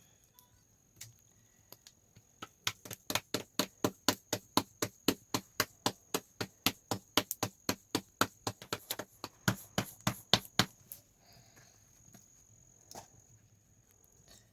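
A fast, even run of sharp knocks, about four a second, lasting about eight seconds and stopping near the end, with one more knock after it. A steady high insect drone runs underneath.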